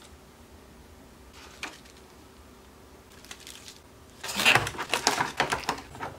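Clear plastic packaging and a small zip bag crinkling and rustling as they are handled, a few faint rustles at first, then loud crackling for about two seconds near the end.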